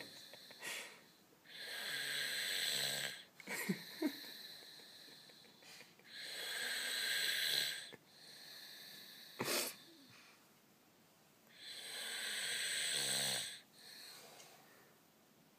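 A sleeper snoring: three long snores about five seconds apart, each lasting a couple of seconds, with a few sharp short clicks in between.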